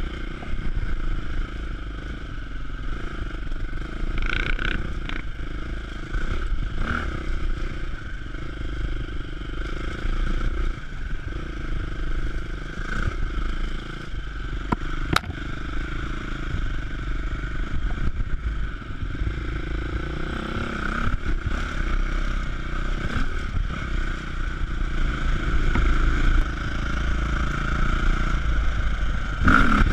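KTM enduro motorcycle engine running under constantly varying throttle, heard from a camera mounted on the bike, with clatter and knocks as it rides over a rough dirt trail.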